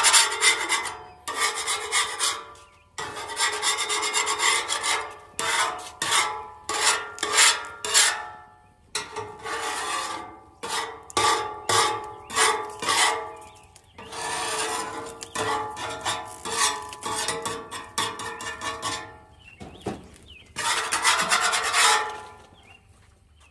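A metal spatula scraping the steel top of a Blackstone gas griddle to clean off cooked-on residue. It is a long run of rasping strokes, some long and some short and quick, with a ringing note running under them.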